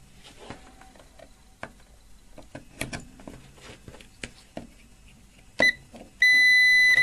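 Test leads handled with light clicks and rustles, then a Facom 711 multimeter's continuity buzzer gives a short beep and, about a second later, a steady high beep as the probe tips are held together. The unbroken tone shows that the repaired test lead now conducts without cutting out.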